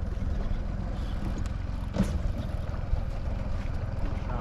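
Boat's outboard motor running steadily, with a brief knock about two seconds in.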